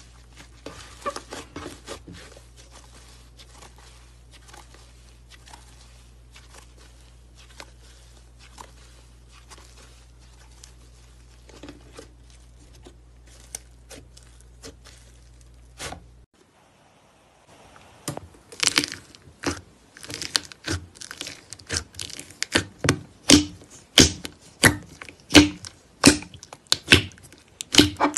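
Hands playing with slime: faint crackles and clicks over a low hum while pink fluffy slime is pressed and stretched. About halfway through, after a short gap, a finger pokes thick slime in a plastic jar, giving loud, sharp pops and clicks about twice a second.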